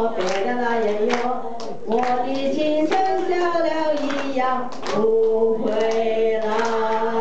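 A woman singing into a microphone, holding long notes, with hands clapping along about once a second.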